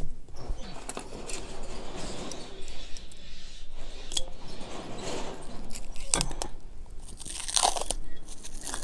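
Plastic packaging crinkling as it is worked off the end of a chrome EZ curl bar, with a few sharp clicks and a louder burst of crinkling near the end.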